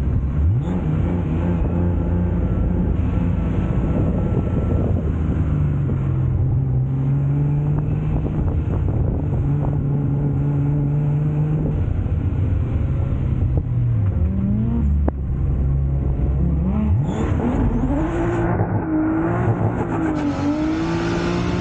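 Nissan S14 drift car's RB25 turbocharged straight-six engine, heard from a camera mounted on the car, pulling at steady revs through a slide, dropping about two-thirds through, then climbing again and rising and falling with the throttle near the end.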